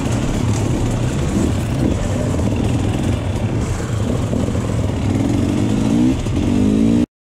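Enduro motorcycle engine running as the bike pulls away and rides along the road, rising in pitch as it accelerates near the end. The sound cuts off suddenly just before the end.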